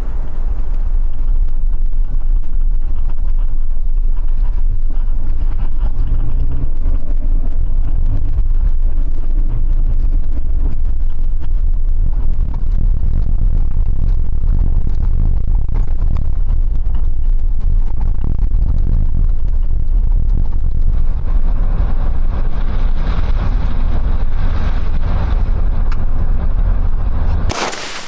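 Car driving on a snowy road, heard from inside the cabin: a loud, steady low rumble of engine and tyres, growing a little hissier in the last several seconds before it cuts off just before the end.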